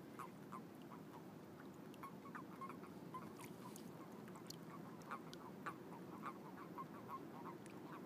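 A faint chorus of common toads calling at spawning time: many short croaks a few times a second, overlapping, over a steady low background noise.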